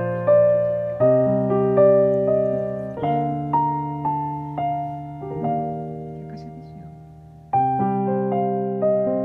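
Background piano music: soft chords and melody notes, each struck and fading away, with a lull before a new phrase comes in about seven and a half seconds in.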